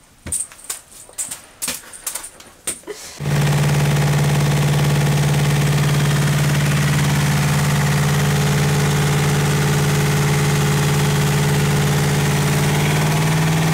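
A few light clicks and taps, then about three seconds in a machine sets in abruptly and runs steadily with a strong low hum. Its pitch rises slightly near the end.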